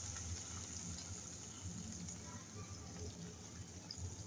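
Faint, steady hiss, slowly fading: the hot ghee tempering of whole spices and nuts sizzling gently on the hot gudamba.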